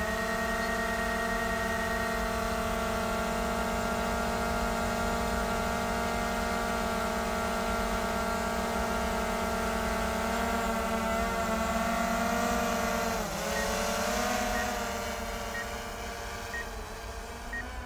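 DJI Mavic Air 2 quadcopter's propellers whining steadily as it hovers just after takeoff. About thirteen seconds in the pitch dips and climbs again as it moves off, then the whine fades as it flies away.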